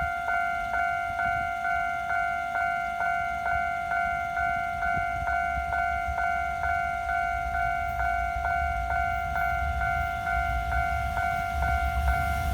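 Japanese railway level-crossing alarm ringing its repeated two-tone 'kan-kan' at about two strikes a second, warning of an approaching freight train. A low rumble of the train builds near the end.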